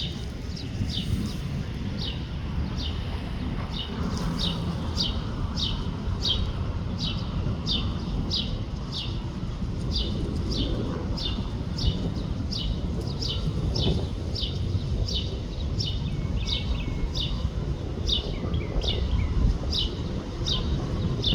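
A bird repeating a short, high, falling chirp about twice a second, very regularly, over a steady low rumble.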